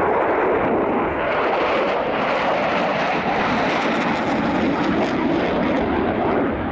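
Dassault Rafale C's twin Snecma M88 turbofans running loud and steady, in afterburner as the jet climbs away.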